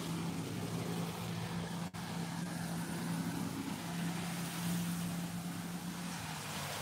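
A motor vehicle engine idling with a steady low hum, over a continuous hiss of rain and wet street.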